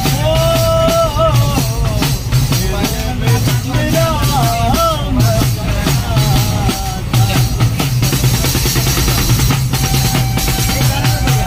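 A man singing while beating a jingle tambourine in a quick, steady rhythm. The sung melody fades after about seven seconds while the tambourine carries on.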